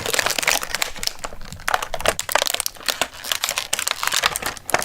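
Plastic packaging crinkling and crackling in a steady, irregular run as a toy part is unwrapped.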